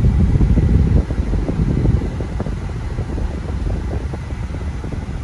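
Car cabin noise while driving: a steady low rumble of engine and tyres on the road, a little louder for the first second.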